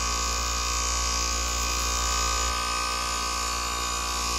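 Rheem heat pump outdoor unit's compressor running with a steady electrical hum, a high hiss easing off about two and a half seconds in.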